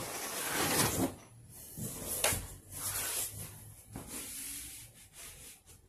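Cardboard shipping box and foam padding sheet being shifted and slid by hand: a run of scraping and rustling in several bursts, with a few sharper knocks.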